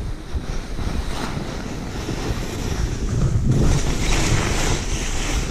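Skis hissing and scraping over snow on a steep descent, with wind buffeting the action-camera microphone. The noise grows louder and brighter for a second or so from about three and a half seconds in.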